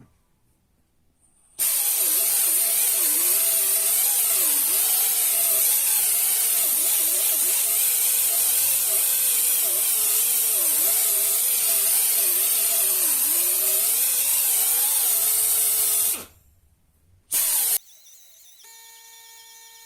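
Handheld power tool, drill-like, running for about fourteen seconds: a loud hiss, with the motor's pitch wavering up and down as it is pressed on and eased off. It stops, then runs again in a short burst of under a second.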